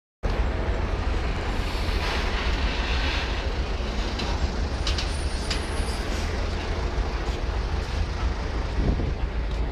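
Heavy truck running with a steady low rumble, and a few sharp clicks about halfway through.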